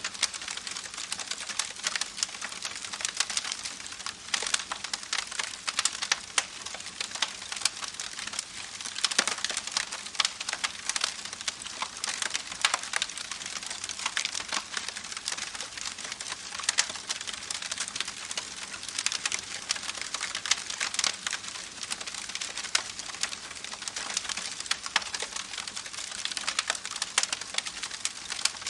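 Campfire crackling, with dense irregular pops and snaps of burning wood over the steady wash of a babbling creek.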